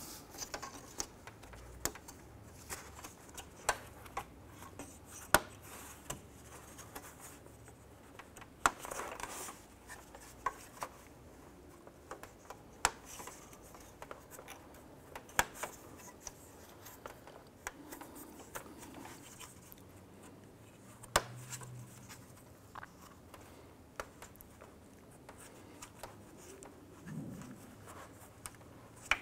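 Irregular sharp plastic clicks and snaps, with brief rubbing, as the clips of a rubber hood-to-grille gasket seal are pressed onto a plastic grille by gloved hands.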